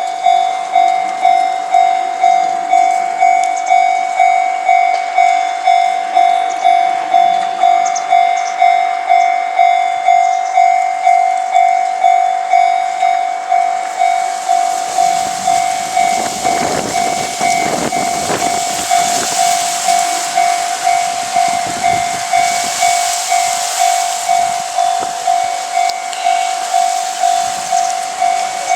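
Japanese railway level-crossing alarm ringing: a pitched electronic bell repeating evenly, about three strikes every two seconds. About 14 s in, a train passes over the crossing, its wheels and running noise rumbling and hissing under the bell. The train noise is loudest around 16 to 19 seconds, then fades.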